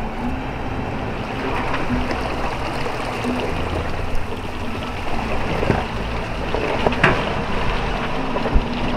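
Ford Raptor pickup driving slowly over a rough dirt trail: steady engine and tyre noise with a few knocks and clunks, the sharpest near the end.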